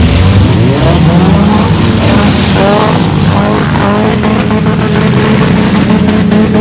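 Several enduro race cars' engines revving hard on a dirt track. Their pitch climbs again and again in the first half, then settles into a steady drone.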